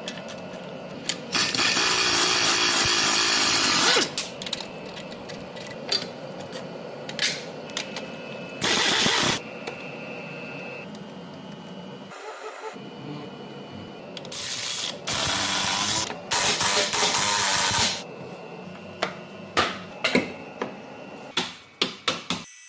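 Aerosol silicone spray hissing in several bursts of one to three seconds onto the car's suspension bushings to cure their squeak, with clicks and knocks of handling in between.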